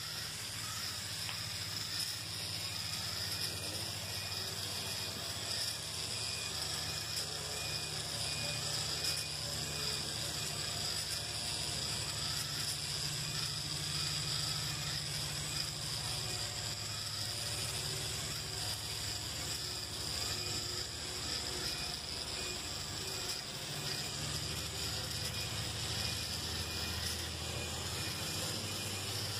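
Small battery-powered walking robot kit's gear motor and leg mechanism running continuously as it walks.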